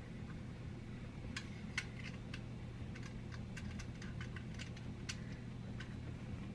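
A newly installed garbage disposal running very quietly: a faint, steady low motor hum, with scattered light clicks and ticks over it.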